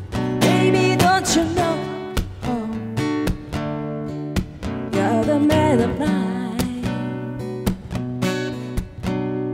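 Live blues music: a guitar plays bending lead lines over strummed chords and a steady beat.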